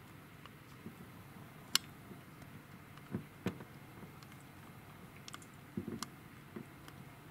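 A cat eating a small piece of chicken: faint, irregular clicks and soft knocks of its mouth and teeth working at the food.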